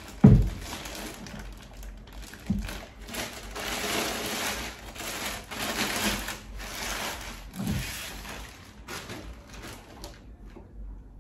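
Plastic bag rustling and crinkling as a lighting console is pulled out of it, with a few dull thumps; the loudest thump comes right at the start.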